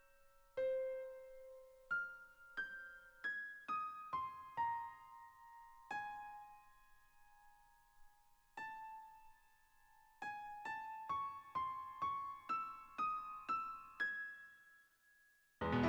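Solo piano playing a slow, quiet melody high on the keyboard, one struck note at a time with gaps between them, the notes coming quicker and climbing from about two-thirds of the way in. A loud full chord comes in right at the end.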